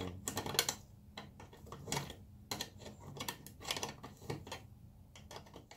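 Irregular light metal clicks and clinks as a rotisserie spit clamp is fitted and tightened onto the spit rod.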